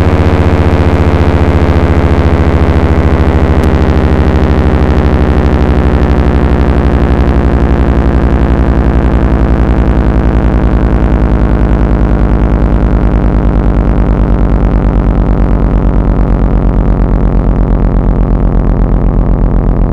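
Federal Signal Thunderbolt 1003A siren winding down: its loud wail falls slowly and steadily in pitch, pulsing regularly as the rotating horn sweeps around.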